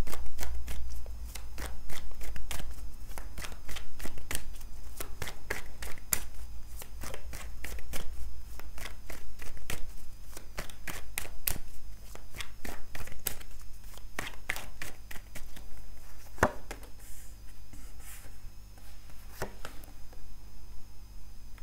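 Tarot deck shuffled by hand: a fast, uneven run of crisp card clicks and snaps, with a dull low handling thump at the start. In the last few seconds the clicks grow sparser as cards are drawn and laid on the table.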